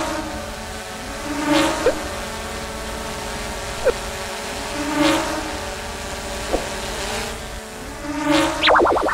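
Buzzing hum of a small quadcopter drone's propellers, with whooshes swelling every few seconds as it swoops past, short pings in between, and a quick run of high chirps near the end.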